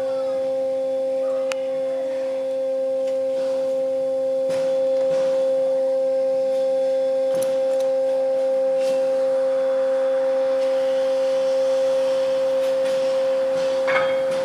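A steady, unbroken high tone, with a few faint clicks and knocks around it.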